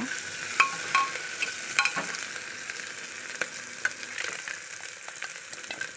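Onions and tomatoes sizzling as they fry in an aluminium pressure cooker, with a metal spoon scraping and clicking against the pot as they are stirred; the clicks come now and then, most in the first two seconds.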